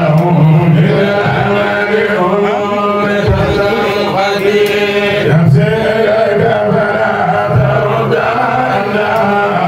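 Men's voices chanting together, a continuous Islamic devotional chant.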